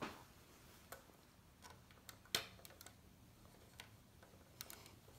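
Faint, scattered clicks of small plastic LEGO pieces being handled and set down on a baseplate by hand. The most distinct click comes a little past two seconds in.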